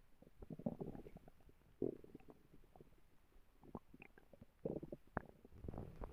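Human stomach growling: irregular gurgles and rumbles broken by short clicks and pops, with stronger gurgles about a second in, near two seconds and near the end.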